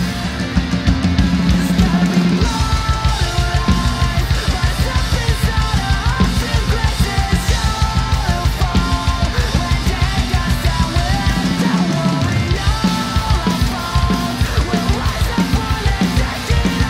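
Acoustic drum kit played along to a rock song's backing track: a fast, steady stream of bass drum, snare and cymbal hits over the song's guitars and melody.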